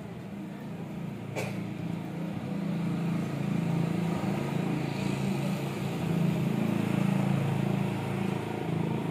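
A motor vehicle's engine running, a steady low rumble that grows louder over the first few seconds and then holds. A single short click about a second and a half in.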